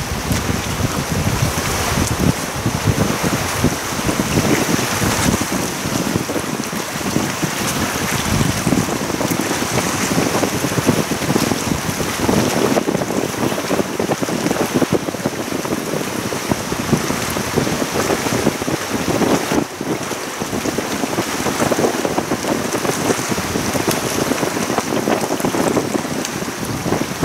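Gusty wind buffeting the microphone, with an uneven rushing noise that rises and falls.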